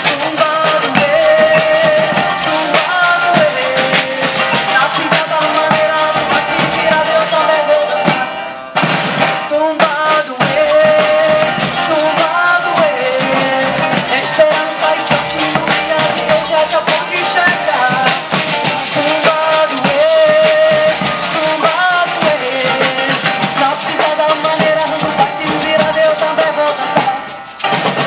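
Live Brazilian maracatu music: a woman singing a melody over acoustic guitar, alfaia bass drums and other percussion. The sound dips briefly about eight and a half seconds in.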